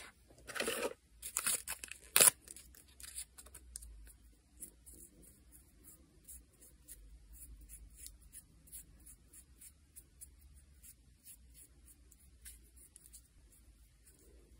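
Nail art materials being handled: a short tearing or peeling sound, a few clicks ending in one sharp, loud click about two seconds in, then a long run of faint light ticks and taps.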